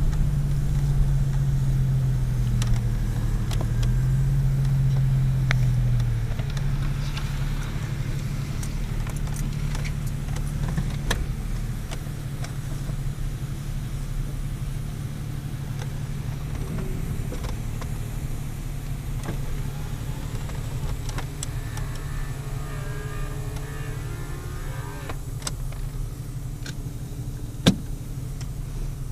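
Vehicle engine idling, heard from inside a car's cabin: louder and wavering in pitch for the first six seconds, then a steady low hum. A single sharp click near the end.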